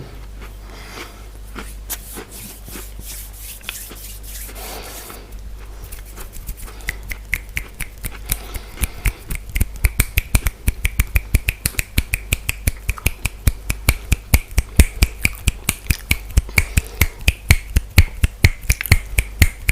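Close-miked eating sounds: a fast run of crisp mouth clicks and crunches, several a second, growing louder about seven seconds in after some softer scraping noises.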